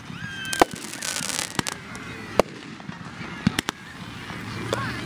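Fireworks going off: scattered sharp bangs and pops at irregular intervals.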